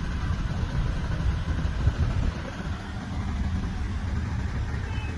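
Car idling with the air conditioning running: a steady low rumble with an even hiss of air, heard inside the cabin, easing slightly about two seconds in.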